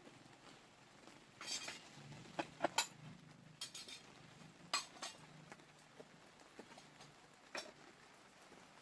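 Scattered light clinks and knocks of small hard objects being handled, like dishes or utensils, in irregular bunches over a faint low hum.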